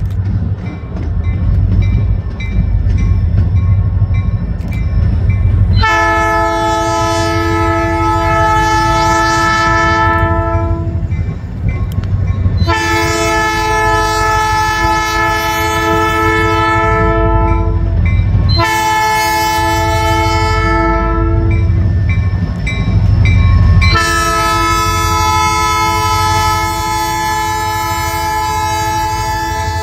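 Air horn of an EMD GP40-2 locomotive, a Nathan Airchime P3 listed with its number 1 chime dead, sounding the grade-crossing signal: long, long, short, long, the last blast still going at the end. Under it the locomotive's diesel engine rumbles steadily as it approaches.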